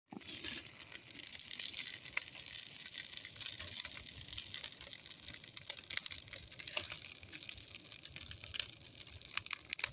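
Wood fire burning, with a steady hiss and many sharp crackles and pops throughout, a couple of louder pops near the end.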